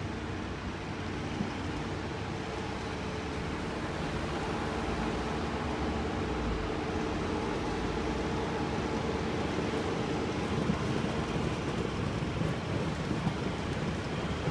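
Road traffic noise: a steady hum of engines and tyres, with a constant low engine drone, growing a little louder after a few seconds.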